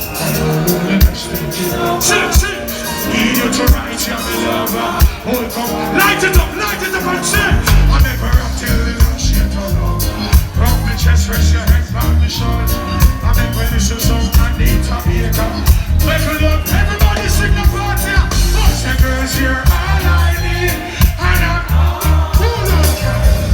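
Reggae music played live at a concert, loud and continuous. A heavy, pulsing bass line comes in about a third of the way through.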